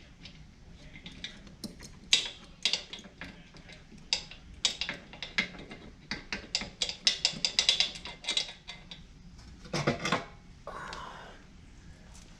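Irregular metallic clicks and clinks of metal parts and tools being handled, coming thick and fast for several seconds, with one louder knock about ten seconds in followed by a short scrape.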